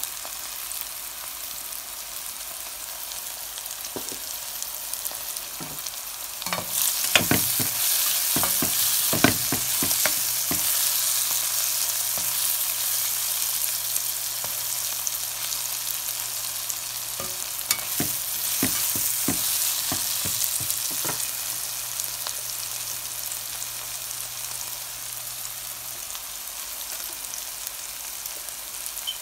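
Chopped onions, bell peppers and corn sizzling in hot oil in a metal pan while being stirred with a steel ladle. The ladle scrapes and knocks against the pan in two spells, one starting about seven seconds in and another around eighteen seconds. The sizzling is loudest through the middle and eases toward the end.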